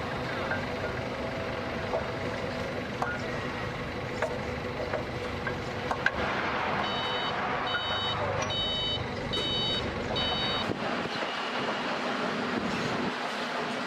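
HWL300R pile-driving rig's engine running steadily, with scattered metal clinks and knocks. About seven seconds in, a warning beeper sounds five short beeps in a row.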